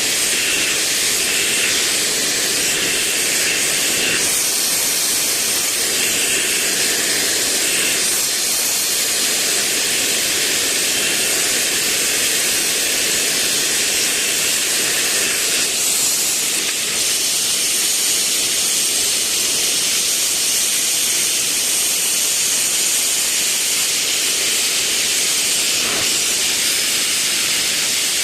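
Gas torch flame hissing steadily, as used to heat and shape glass.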